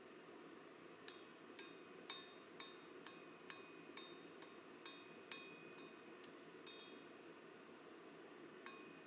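Hammer blows on an anvil, each with a short metallic ring, about two a second for roughly five seconds, then two more near the end. Faint, over a steady low hiss.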